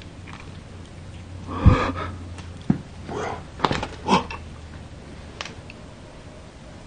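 Handling noise from a handheld camera being moved about: a thump about a couple of seconds in, a few clicks and short breathy rustles, in a small bare room.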